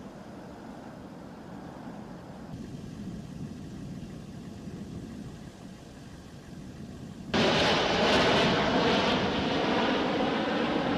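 C-17 Globemaster III jet engines: a low rumble for about seven seconds, then a sudden jump to much louder jet noise with a steady whine in it.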